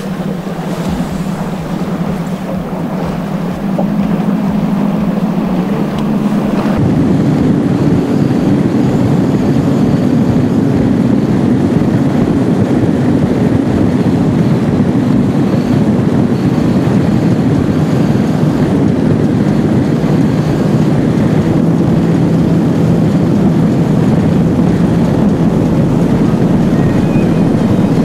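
Bass boat's outboard engine running at speed, with wind on the microphone and water rushing past the hull. The engine gets louder over the first few seconds, steps up about seven seconds in, and then holds steady.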